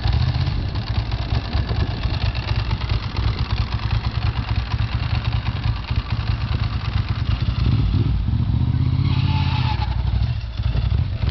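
Ducati 900SS SP's air-cooled 900 cc L-twin engine running at a lumpy, pulsing idle after start-up. About eight seconds in, the revs rise to a steadier, louder note as the bike pulls away.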